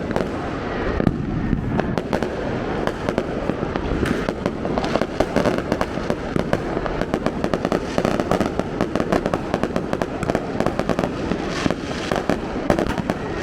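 Many firecrackers going off at once: a dense, unbroken run of sharp pops and bangs, many a second, with louder single bangs standing out now and then.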